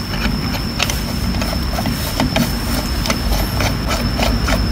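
Small irregular metal clicks and taps as a screw-type tappet puller is threaded and handled against the cast housing of a PE inline diesel injection pump, over a steady low hum and a steady high whine.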